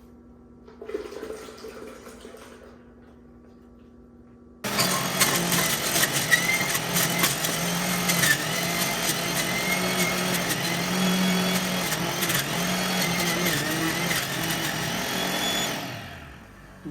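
NutriBullet centrifugal juicer switching on about five seconds in, its motor running at high speed with a steady hum and many irregular clicks as produce is shredded in the spinning basket. It then shuts off and spins down near the end.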